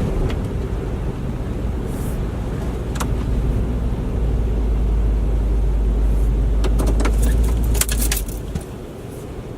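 Hurricane-force wind gusting with a heavy low rumble of wind on the microphone, with scattered clicks and rattles of flying debris. The gust builds and then eases off sharply near the end.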